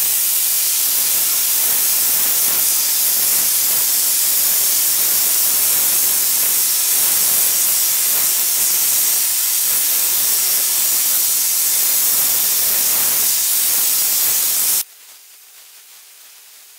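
Hypertherm Powermax 85 plasma cutter's arc cutting a bevel on a turning pipe: a loud, steady hiss. About 15 seconds in the hiss drops away abruptly, leaving only a faint hiss.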